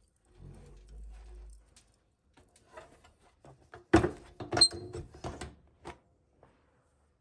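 A few sharp knocks and clunks of objects being handled, the loudest about four seconds in, one with a brief high ring; a low rumble before them.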